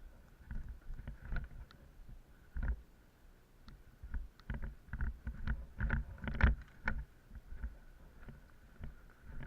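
Irregular knocks and crunching thumps, thickest around the middle, over a low rumble and a faint steady whine.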